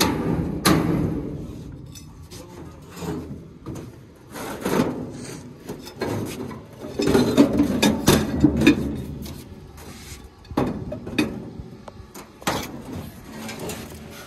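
Scattered knocks, clicks and scrapes of heavy steel brackets and a wooden plank being handled and set down on a steel truck-bed floor, busiest a little past the middle.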